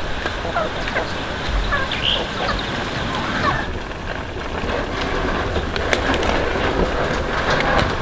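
Birds chirping in short scattered calls over a steady hiss.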